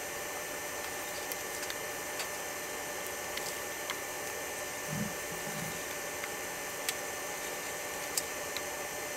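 Faint sharp clicks of small electronic parts being handled and pressed into place while a mixing desk's circuit board is reassembled, over a steady background hiss, with a soft low thump about five seconds in.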